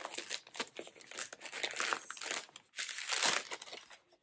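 Hands crinkling and rustling the wrapping of a yarn advent calendar mini skein while unwrapping it. The crackling comes in irregular bursts, louder about two and three seconds in.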